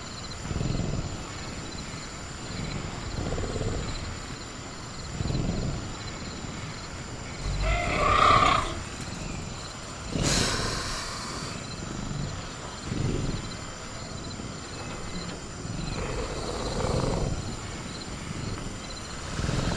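Sound-effect velociraptor growling: low, rumbling growls recur every couple of seconds, with a louder pitched call about eight seconds in and a harsh noisy burst about ten seconds in. Crickets chirp steadily in the background.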